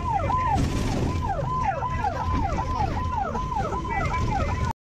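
Electronic siren yelping, a falling tone repeating about three times a second, over the low rumble of a bus engine heard from inside the bus cabin. The sound cuts off suddenly near the end.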